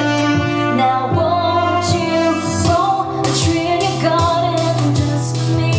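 A woman singing a pop song live, held notes over steady instrumental accompaniment.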